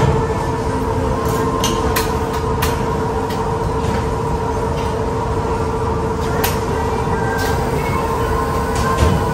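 A steady mechanical hum with a constant droning tone, over which forks clink a few times against metal steak platters.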